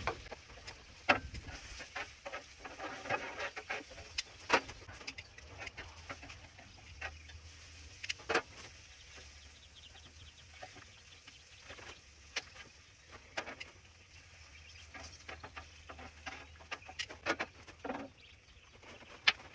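Scattered light clicks and taps of cooking utensils and food being handled at a flat-top griddle, as slices of Spam are cut and laid out on it.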